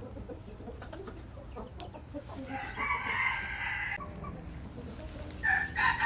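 Young rooster crowing: one drawn-out crow about halfway through and another beginning near the end.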